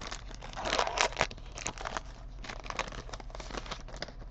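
Foil wrapper of a trading card pack crinkling as it is handled, in irregular crackly rustles that are thickest in the first second or so, then thin out into light clicks.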